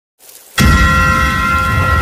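Intro sound effect for a channel logo animation. A sudden hit lands about half a second in, then several steady ringing tones hold over a deep low rumble.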